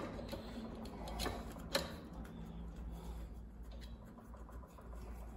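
Small metallic clicks and ticks of a hand tool working a bolt loose on the head of a milling machine, with two sharper clicks a little after the first second, over a low steady hum.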